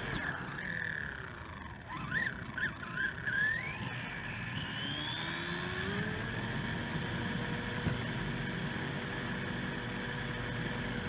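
Helion Animus 18SC RC short-course truck driving on pavement: the electric drivetrain whines, rising and falling in pitch with the throttle, with several quick blips about two to three and a half seconds in and a long rising whine that then holds steady. Underneath runs a steady rumble of the tyres on the rough asphalt.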